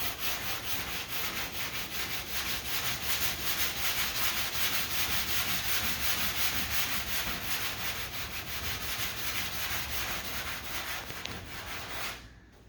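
Hand scuffing of a car body panel's paint with an abrasive, in rapid back-and-forth strokes, to key the surface so primer will stick. The rubbing stops near the end.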